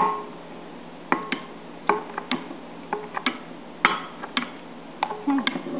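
Metal spoon clinking against the side of a glass mixing bowl while stirring thin pancake batter: about a dozen short, ringing clinks at an uneven pace of roughly two a second.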